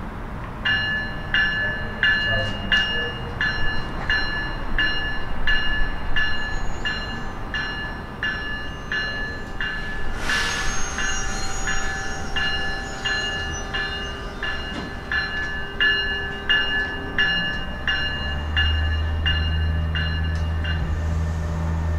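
Train bell ringing steadily, about two strikes a second, as a train passes with a brief rush of noise midway. A low steady hum comes in near the end.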